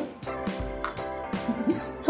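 Background music with held chords over a low bass line.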